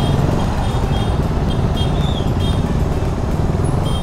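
KTM Duke's single-cylinder engine running steadily under way, heard close up through a helmet-mounted mic, with a fast even pulsing of the exhaust.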